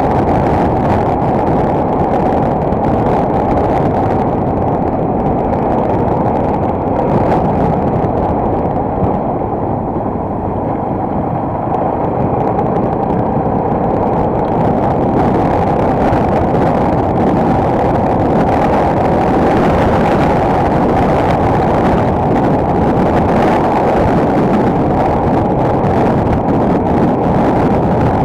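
Enduro motorcycle on the move: a steady loud engine rumble mixed with heavy wind buffeting on the action camera's microphone, easing slightly about a third of the way through.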